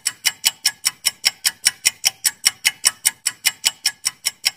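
Countdown timer sound effect: sharp, even clock-like ticks, about five a second.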